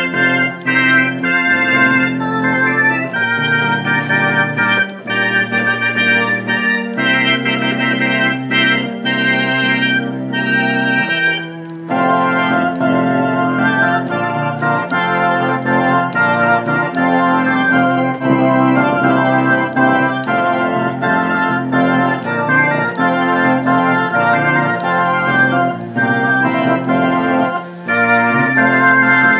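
Theatre organ playing a Christmas carol in sustained chords over a stepping bass line, with a brief break between phrases about twelve seconds in.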